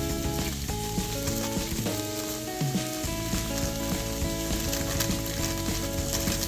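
Plastic packaging crackling and rustling as it is handled and pulled open, over background music of held, stepping notes.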